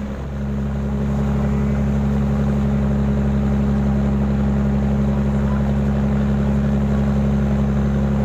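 Shrimp trawler's diesel engine running steadily, a deep even drone that holds one pitch throughout.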